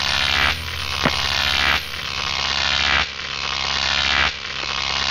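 Electrical hum and static hiss sound effect: the hiss swells and cuts off sharply about every second and a quarter over a steady low hum, with a single click about a second in.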